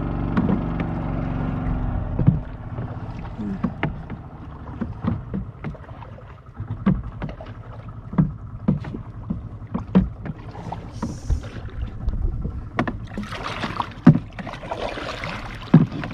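Water slapping and plunking against the hull of a small boat in irregular knocks. A steady motor drone fades in the first two seconds, and there is a louder stretch of splashing near the end.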